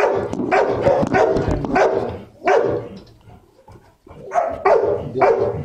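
A dog barking: a quick run of about half a dozen barks, a short pause, then a few more barks near the end.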